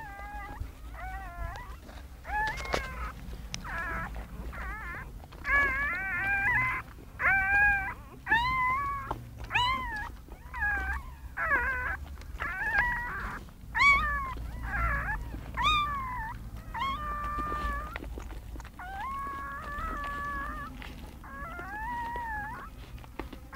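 Newborn puppy crying: a string of short, high, squeaky whines, about one a second, many rising and then falling in pitch.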